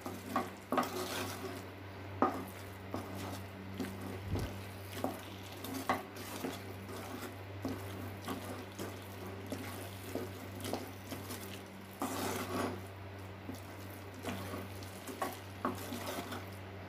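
A spoon stirring and scraping a thick coconut-and-sugar burfi mixture around a nonstick pan, with irregular scrapes and light taps against the pan. The mixture has cooked down to a dense mass that is starting to come away from the pan. A steady low hum runs underneath.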